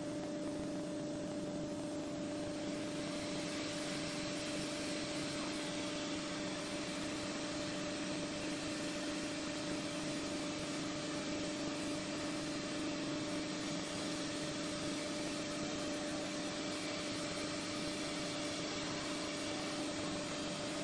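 UA48 automatic tool-change woodworking CNC router running with its dust extraction: a steady airy rush with a constant hum of two tones, the hiss growing stronger about two to three seconds in.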